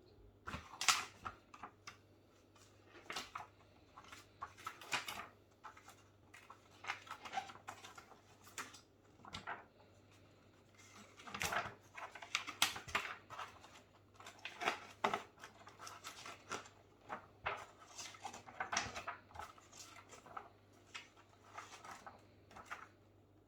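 Snack packets and box packaging being handled: irregular crinkling and rustling of wrappers with light clicks and taps, coming in clusters.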